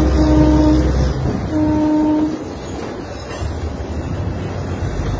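Narrow-gauge diesel locomotive's horn sounding in two steady blasts, the second about a second and a half in, over the rumble and clatter of the train running on the line.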